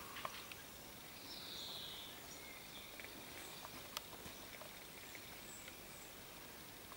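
Quiet outdoor background with a few faint clicks of spruce twigs brushing against the camera, and a brief faint high call that falls in pitch about a second and a half in.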